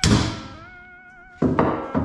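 Hammer blows on a spark plug socket sitting on a valve spring retainer of a Ford 302 cylinder head, knocking the retainer down to free the valve keepers so the spring comes off. A sharp ringing strike comes at the start and a quick pair of strikes near the end. Guitar background music plays underneath.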